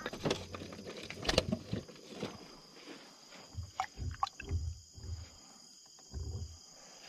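Irregular knocks, clicks and dull thumps of fishing gear being handled in the hull of a small boat, over a faint steady high-pitched whine.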